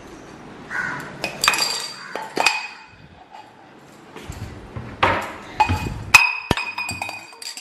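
Stainless-steel vessels clinking and clanging as they are handled and put away into a wire basket rack. Several sharp metallic knocks come in two clusters, one a little over a second in and another around the fifth to sixth second, each leaving a brief ring.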